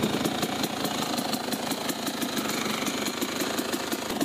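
ZM Tracer 300 two-stroke enduro motorcycle engine idling steadily with a fast, even popping beat, running smoothly just after starting.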